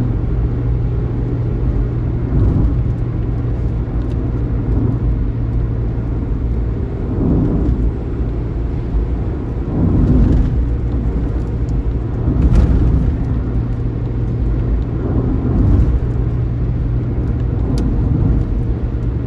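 Long-distance bus running at road speed: a steady engine drone mixed with road noise, swelling briefly several times.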